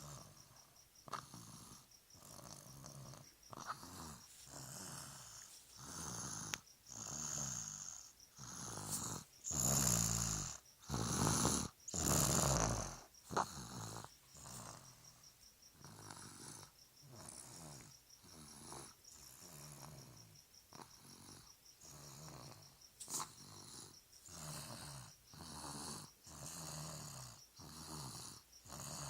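A one-year-old child snoring in his sleep, a rasping snore with each breath at about one breath a second. A few louder, longer snores come about ten seconds in.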